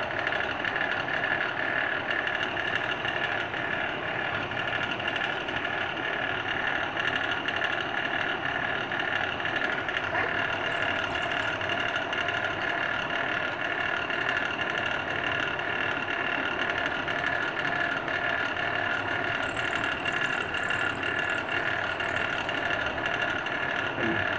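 Small bench drill press motor running steadily with a constant whine.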